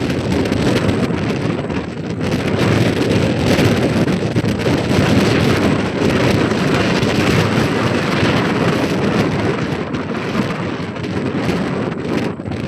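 Storm-force gale wind buffeting the microphone in a loud, steady, rumbling rush with constant flutter.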